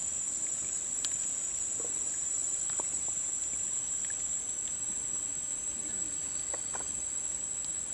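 Steady high-pitched insect chirring, with faint scattered soft pops from a pan of prawn sour soup simmering.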